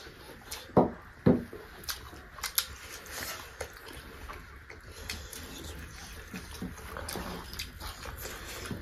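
Close-miked eating sounds: wet chewing and lip-smacking of people eating rice and curry by hand, with two louder mouth sounds about a second in.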